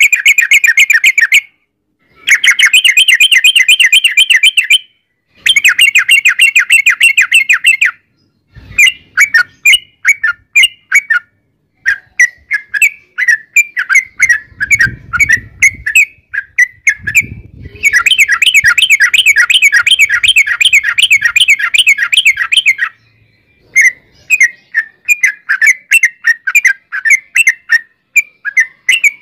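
Yellow-vented bulbul (trucukan) singing: long, fast rolling runs of repeated notes lasting several seconds, broken by short pauses and choppier chattering phrases. This is the long rolling 'ropel panjang' song used as a lure to make other bulbuls answer.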